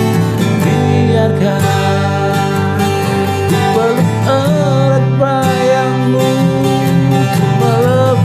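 Acoustic guitar strummed steadily, picked up by a clip-on lavalier microphone on the guitar. From about four seconds in a man's voice joins, singing a held, wavering wordless melody over the chords.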